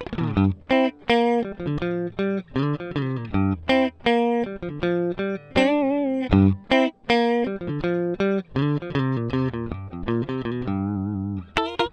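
Electric guitar, a G&L ASAT Special Telecaster with George Fullerton pickups, played clean and recorded direct with no compression: a run of single plucked notes and short chords, some louder and some softer. One note wavers in pitch about six seconds in. The uneven loudness from note to note is the guitar's unaffected dynamics, with the compressor pedal bypassed.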